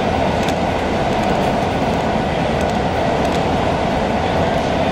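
Long Island Rail Road passenger train heard from inside the coach while running at speed: a steady rumble of wheels on the rails, with a few faint clicks.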